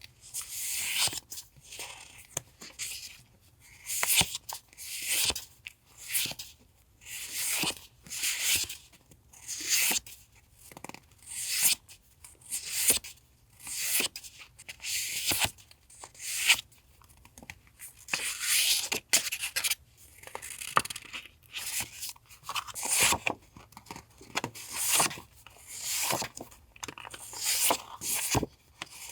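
Paper handling: sheets of vintage paper and stickers being pulled out, shuffled and rustled, in short rustles about once a second, with a few small taps.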